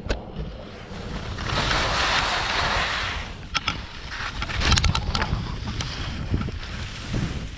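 Skis scraping over chopped-up, lumpy snow on a fast descent, with wind buffeting the microphone. The scraping rush is strongest for about two seconds near the start, and a few sharp clacks come around the middle.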